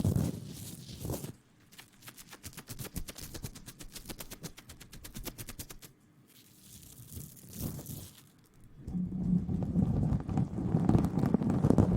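Close-microphone ASMR trigger sounds: a brief rustle, then a fast run of sharp clicks, about ten a second, for several seconds, then louder rubbing and rustling against the microphone near the end.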